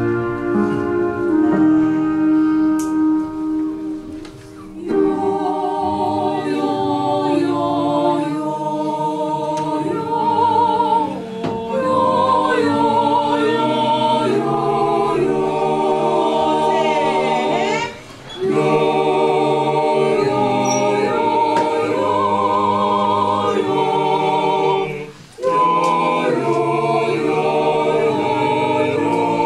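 Church choir of men and women singing together in sustained, layered parts. There are three short breaks between phrases.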